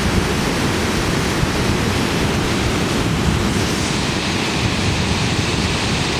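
Waterfall: a steady, loud rush of falling water, deepest in the low range.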